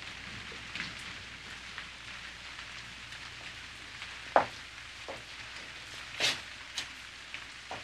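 Steady rain falling, an even hiss broken by a few sharp taps and clicks, the loudest about four and a half seconds in.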